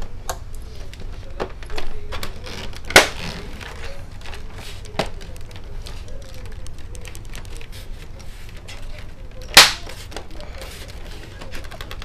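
Plastic case of an HP Omni 120 all-in-one computer being handled: scattered light clicks and taps, with two sharp knocks, one about three seconds in and one near ten seconds in.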